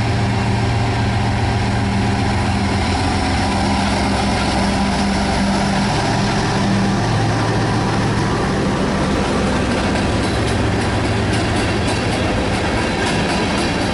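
BNSF diesel freight locomotives passing close by with their engines droning, followed by the rumble of covered hopper cars rolling past. From about ten seconds in, the wheels click rhythmically over the rail joints.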